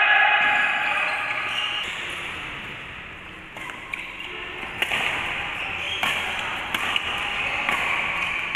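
Badminton rally: sharp racket strikes on the shuttlecock about once a second, echoing in a large hall, after a held, pitched tone fades out over the first two seconds.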